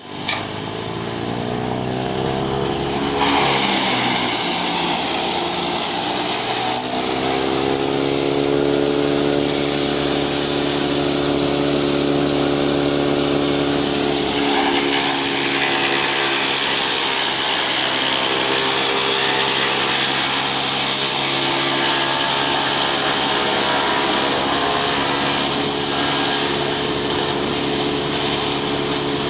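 Eicher 650 4x4 tractor engine driving a wood chipper: the revs climb over the first few seconds, then the tractor and chipper run steadily at speed with a loud high hiss over the engine note.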